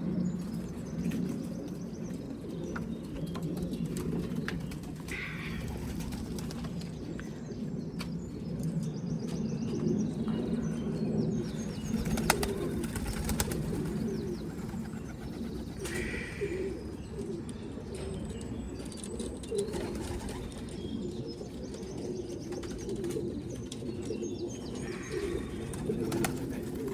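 Racing pigeons cooing at the loft, a continuous low warbling chorus, with scattered sharp clicks and some wing flapping.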